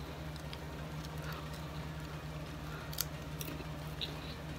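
A person chewing a crunchy salt and vinegar potato chip, with scattered sharp crunches, the clearest about three seconds in. A steady low hum runs underneath.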